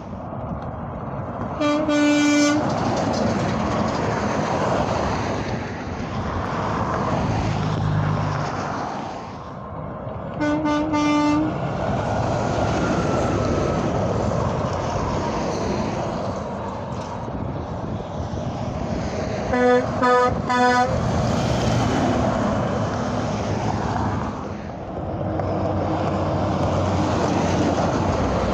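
Highway traffic passing steadily, with truck horns sounding over it: one blast about two seconds in, another about ten seconds in, and a quick series of short toots around twenty seconds in.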